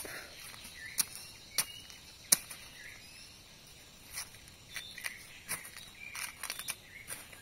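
Machete blade chopping into forest soil and dry leaf litter while digging: four sharp strikes in the first two and a half seconds, the last the loudest. After that come quieter scrapes and dry-leaf rustling as the ground is worked by hand.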